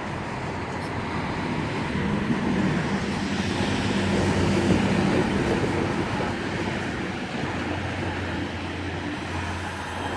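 A V-set double-deck electric train running in along the platform, its wheel and running noise growing louder to a peak about halfway and then easing, with a steady low hum under it.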